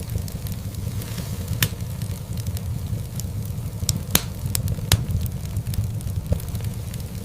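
Wood fire in a fireplace crackling: scattered sharp pops and snaps over a steady low rumble of the flames, with a few louder pops in the middle.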